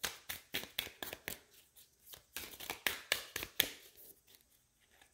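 A deck of tarot cards being shuffled by hand: a quick run of soft card clicks and riffles that thins out and fades after about three and a half seconds.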